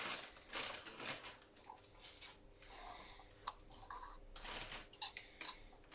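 Knife cutting leaves on a chopping board: scattered light clicks and crunches.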